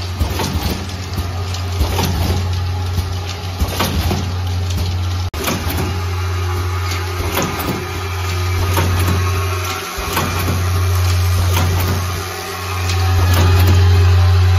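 Automatic vial filling and capping machine running: a steady low hum, typical of its vibratory bowl feeders, under irregular clinking and rattling of glass vials on the rotary table and clicking of the capping mechanism. The hum dips briefly twice in the second half.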